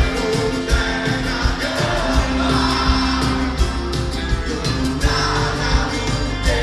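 Live band music: electric and acoustic guitars, bass and drums playing a steady beat, with singing.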